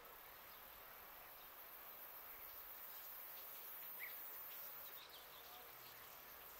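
Faint summer outdoor ambience of insects, with a single brief chirp about four seconds in.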